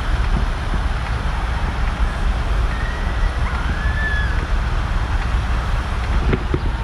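Wind rumbling on the microphone over a steady outdoor hiss, with two faint high gliding whistles about three and four seconds in.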